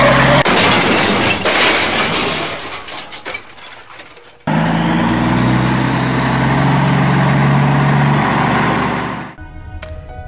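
A dubbed crash sound effect: a loud smash with shattering that fades away over about four seconds, then a loud steady low drone of several held tones for about five seconds. Light plucked music starts near the end.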